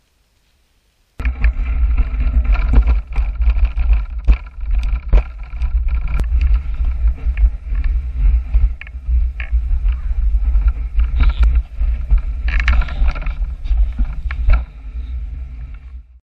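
Bicycle riding along a rough dirt trail, heard from a camera mounted on the bike: heavy wind rumble on the microphone with frequent rattles and knocks over bumps. It starts abruptly about a second in, and drops and fades near the end.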